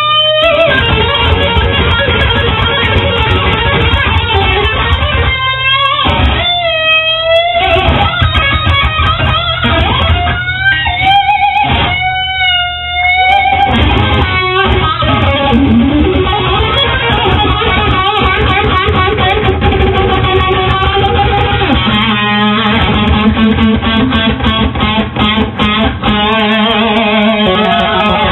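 Live band playing: an electric guitar plays sustained lead notes with bends and vibrato over drums.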